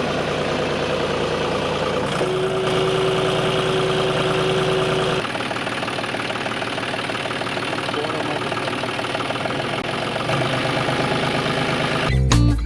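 Small electric motor and gearing of a homemade mini tractor running with a steady whirr and fine rapid ticking; its note changes about two seconds in and again about five seconds in, as with a change of load.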